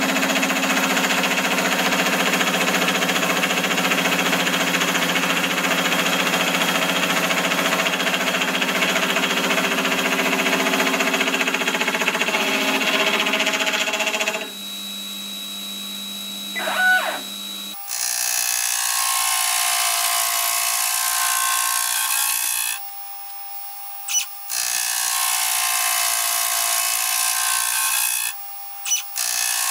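Electric-motor-driven milling spindle running as its gear cutter cuts the teeth of a gear blank. About 14 s in the cutting stops, leaving a quieter hum and a brief whine as the stepper-driven rotary table indexes the blank. Cutting then resumes with a brighter sound, broken twice by short quiet gaps.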